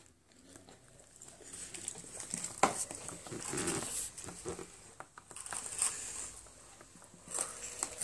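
Young cockatiel nibbling at a hand and a metal ring and shuffling about on a glass table top: soft scratching and rustling with light clicks, and one sharper knock about two and a half seconds in.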